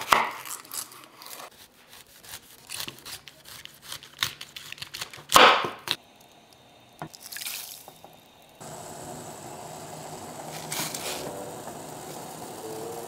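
Knife slicing through a cauliflower head on a wooden chopping board: a run of crisp crunching cuts and knocks, the loudest about five seconds in. From about eight and a half seconds a steady hiss with a low hum sets in, with water sounds as cauliflower slices are lowered into a pot of water.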